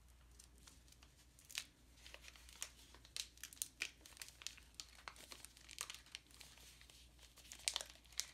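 Sealed trading-card pack wrapper crinkling and crackling as hands slowly pull it open: a run of faint, irregular crackles, loudest near the end.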